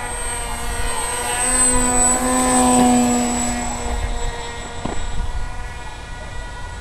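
Electric motor and propeller of a battery-powered FPV fixed-wing model plane whining as it flies past low: a steady pitched drone that grows louder to a peak about three seconds in, then fades away.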